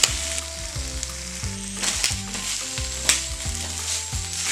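Seasoned pork pigtails sizzling in a hot cast iron skillet while a wooden spoon stirs them, with a couple of sharper scrapes of the spoon against the pan. Soft background music with a steady bass line runs underneath.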